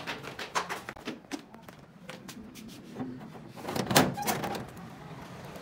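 Footsteps in sandals going down stairs, a run of irregular slapping clicks, with one louder thunk about four seconds in.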